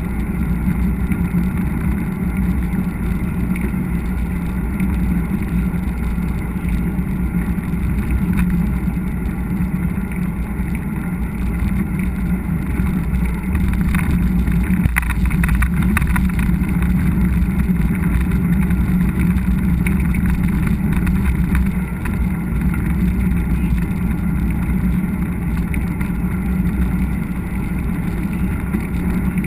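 Steady wind rush and rolling rumble of a mountain bike riding a trail, picked up by a bike- or helmet-mounted action camera, with short rattles around the middle.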